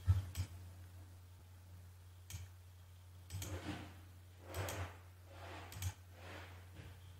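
Faint computer mouse clicks, about half a dozen spread unevenly, with a few soft short swells of noise between them, over a steady low electrical hum.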